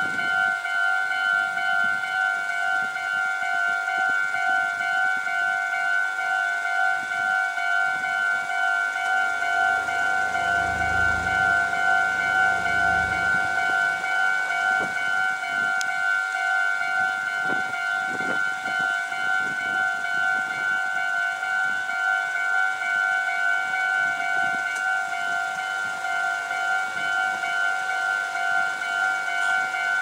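Japanese railway level-crossing warning bell ringing: an electronic alarm repeating the same two-tone ding over and over while the crossing lights flash. A low rumble passes underneath from about nine to fifteen seconds in.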